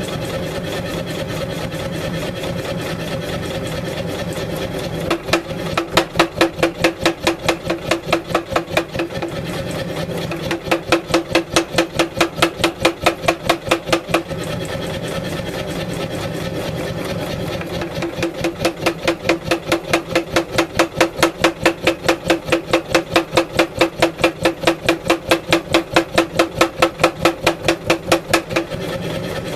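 A power hammer with a 16 kg head runs with a rapid, even beat, forging a hot wootz steel ingot. It strikes harder in three runs of blows: from about five seconds in to nine, from about ten to fourteen, and from about eighteen until shortly before the end.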